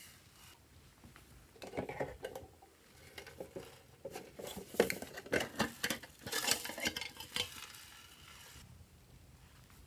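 Glossy slime being mixed, making a run of small sticky clicks and pops. It starts about a second and a half in and stops near the end.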